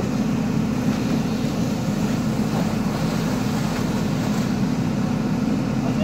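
JCB 3DX backhoe loader's diesel engine running steadily as the backhoe arm works, a constant low hum without distinct knocks.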